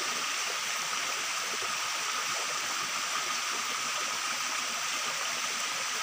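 Shallow rocky stream running steadily, an even rush of flowing water with no breaks.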